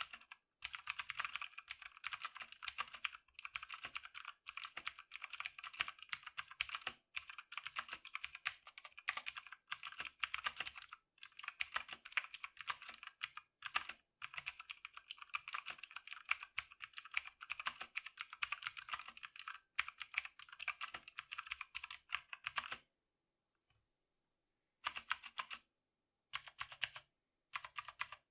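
Fast typing on a MotoSpeed 104CK mechanical keyboard with Outemu blue clicky switches: a dense stream of sharp key clicks. It stops about 23 seconds in, then comes back in a few short bursts near the end.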